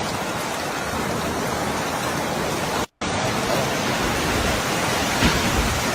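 Steady rushing hurricane storm noise of wind and rain, broken by a brief dropout a little under halfway through.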